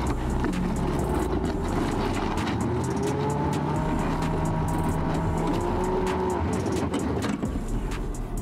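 2020 Land Rover Defender crawling over rocks in low range, its engine running steadily under load, with a few brief whines that rise and fall in pitch.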